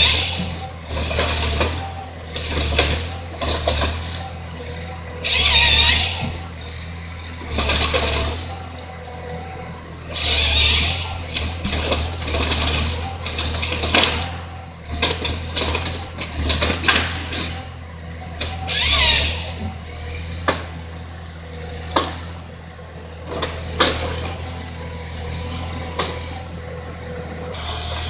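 Timberjack harvester's diesel engine running steadily while the harvester head's chain saw cuts through logs in several short bursts, with knocks and clunks from the head handling the logs in between.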